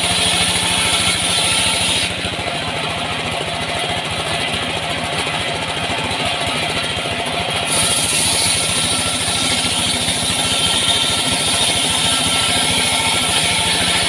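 Engine-driven wood saw running steadily while sawing sengon timber, with a fast even engine pulse underneath. A high hiss drops away about two seconds in and comes back about six seconds later.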